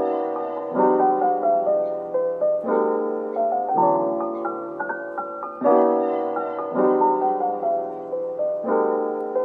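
Background music: a soft piano piece, with new chords struck every second or two and a melody stepping over them.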